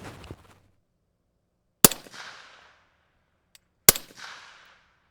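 Two rifle shots in 5.56 NATO fired through a B&T Print-X SRBS-Ti 3D-printed titanium suppressor, about two seconds apart. Each is a sharp report followed by a short fading echo.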